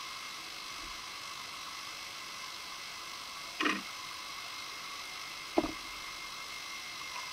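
Steady hiss with a faint high whine, the self-noise of an underwater video camera recording on a reef. Two short sudden sounds, each falling quickly in pitch, come about two seconds apart, near the middle and about two-thirds of the way through.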